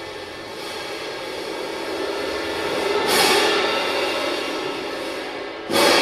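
Cymbals swelling and washing, building to a peak about halfway, then a sudden loud crash near the end.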